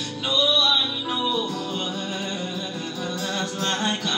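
Live worship song: a voice sings long, sliding notes without clear words over a steady instrumental accompaniment.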